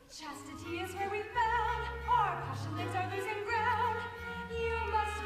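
A high voice singing in an operatic style, holding notes with wide vibrato and sliding between them, over an accompaniment of sustained low bass notes. The music comes in about a second in.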